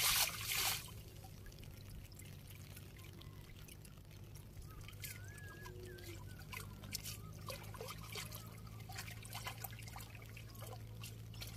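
Water splashing as a bundled cast net is swished through shallow water, loudest in the first second, then steady trickling and dripping as the wet net is gathered by hand.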